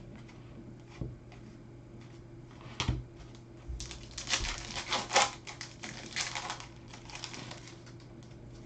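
Baseball trading cards being handled and slid one across another: a couple of light knocks, then a run of quick clicking, rustling card edges, over a low steady hum.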